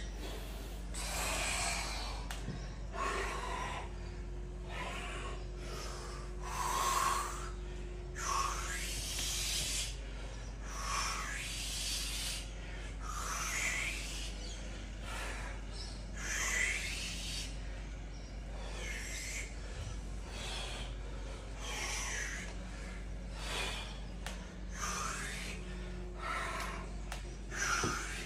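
A man's forceful breaths, short noisy exhalations roughly one every second or so, while shadowboxing.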